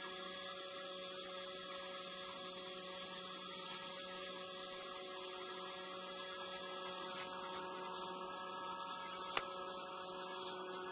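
Faint steady hum made of several even tones over a light hiss, with one sharp click about nine seconds in.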